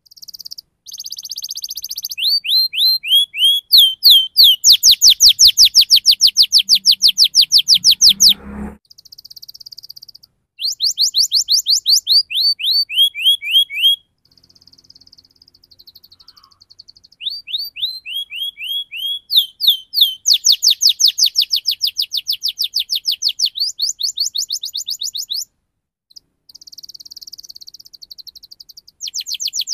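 Domestic canary singing rolling song: long, fast runs of evenly repeated down-slurred notes, broken by short pauses and a few buzzy phrases.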